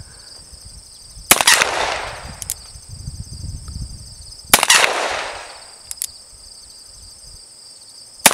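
Single-action revolver fired one-handed: two sharp shots about three seconds apart, each trailing off in about a second of echo, with a third shot right at the end and faint clicks between them.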